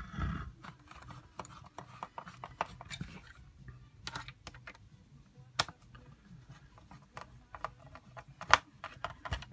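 Irregular light clicks and taps of hard 3D-printed plastic parts being handled while a base plate is screwed on, with two sharper clicks, one about five and a half seconds in and one about eight and a half seconds in.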